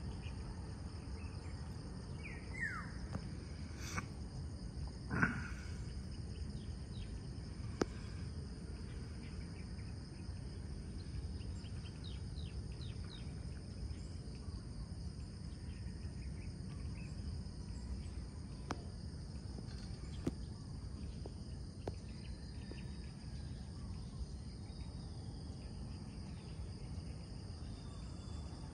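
Steady, high-pitched insect chorus at two pitches over a low background rumble. A bird gives a falling call about two and a half seconds in, there is another short call about five seconds in, and a couple of sharp clicks are heard.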